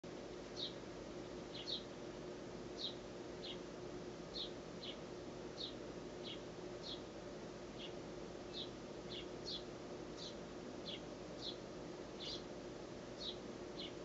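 House sparrow fledgling begging to be fed: short, high chirps repeated steadily, about one and a half a second.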